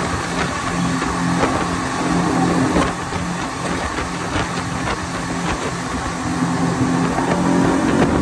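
Twin Mercury 150 hp four-stroke outboard motors running steadily under way at speed, a constant engine drone mixed with a rushing hiss of wind and water.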